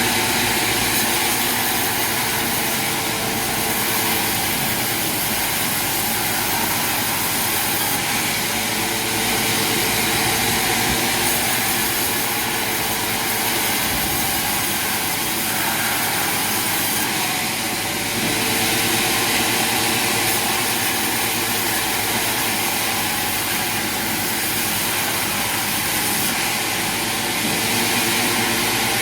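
Sawmill machinery running steadily, a loud even mechanical noise whose character shifts slightly every few seconds.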